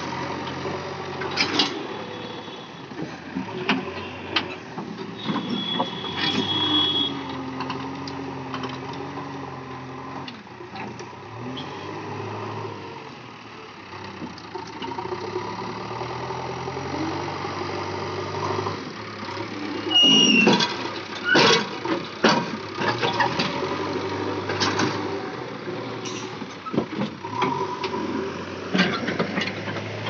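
JCB 3DX backhoe loader working, its diesel engine running steadily, with the engine note wavering as the hydraulics work the arms. Several sharp knocks around two-thirds of the way through.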